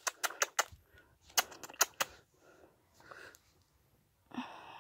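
Handling noise from a phone being moved about: a quick run of sharp clicks and taps in the first two seconds, then faint rustling and a brief soft sound near the end.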